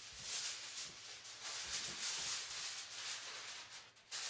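A large sheet of aluminium foil crinkling and rustling in uneven surges as it is handled, with a brief lull near the end.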